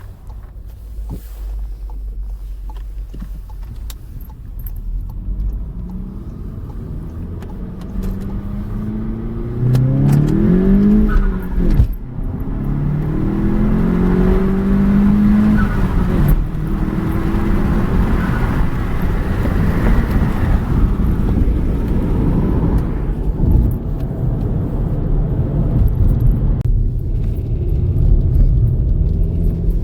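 Volkswagen Golf GTI (MK7) 2.0-litre turbocharged four-cylinder engine running while driving. The revs climb about ten seconds in, drop briefly near twelve seconds at a gear change, climb again, then hold louder and steady.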